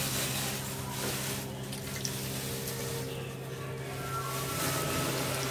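Hands squeezing salted grated radish and carrot over a steel bowl, the liquid drawn out by the salt squishing and dripping back into the bowl, over a steady low hum.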